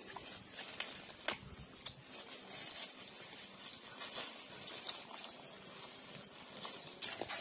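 Puppies suckling at a standing mother dog's teats: an irregular patter of soft smacking clicks from their mouths.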